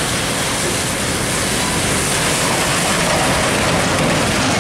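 Steady hiss of heavy rain and wet road spray as a UD Quester truck towing a trailer drives past, its diesel engine running low underneath.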